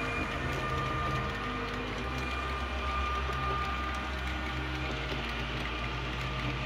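H0-scale model ÖBB Railjet train running along the layout track: a steady mechanical whirr of wheels on the rails with light clicking, over a low hum that grows stronger about two seconds in.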